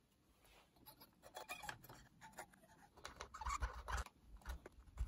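Cotton swab with contact cleaner scrubbing the coiled-spring battery terminals of a 1980s Sanyo personal cassette player: faint, irregular scratching and rubbing with small clicks. A few light knocks of handling come in the second half.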